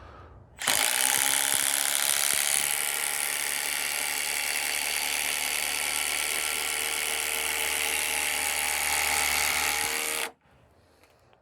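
Milwaukee M12 3450-20 compact brushless impact driver hammering steadily for nearly ten seconds as it drives a 6-inch, 3/8-inch lag screw into wood, stopping suddenly once the screw is seated.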